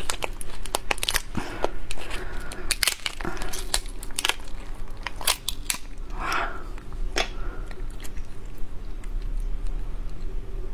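Close-up eating of langoustine: many sharp cracks and clicks of shell being broken and bitten, with chewing in between.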